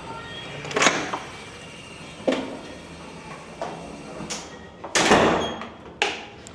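A run of about six sharp knocks and clatters in a small room, the loudest and longest about five seconds in.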